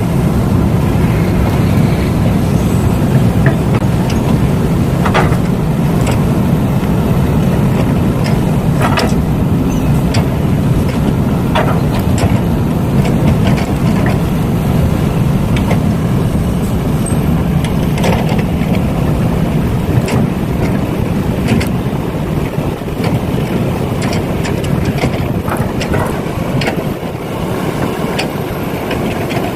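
Steady engine-like running noise from radio-controlled model trucks and an excavator at work, with scattered sharp clicks and scrapes throughout.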